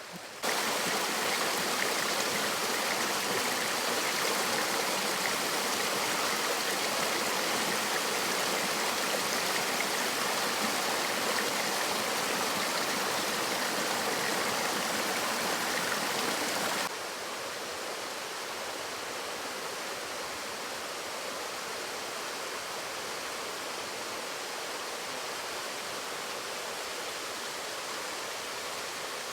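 Steady rush of water pouring over a small waterfall. About two-thirds of the way through it drops suddenly to a softer, even rush.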